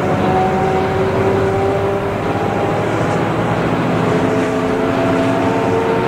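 1994 TMC RTS transit bus with a Detroit Diesel Series 50 four-cylinder diesel and Allison V731 automatic transmission, running along the road as heard from on board: a steady engine drone with whining tones that drift slowly up and down in pitch.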